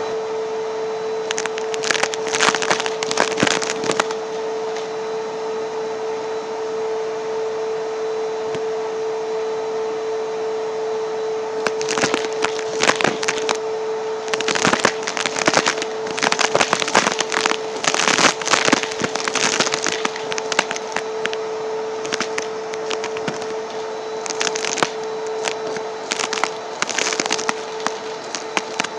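Vacuum cleaner motor running steadily with a dusting brush attachment, broken by repeated bouts of scratchy crackling as the brush is worked over a surface and draws up debris, most busily in the second half.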